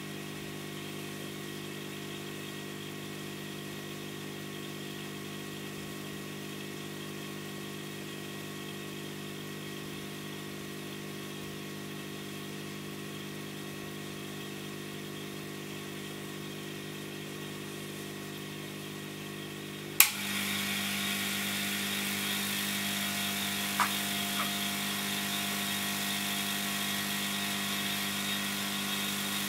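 Hot-air rework station's blower running steadily with a hum. About two-thirds in there is a sharp click, after which the rushing air is louder. A smaller click comes a few seconds later.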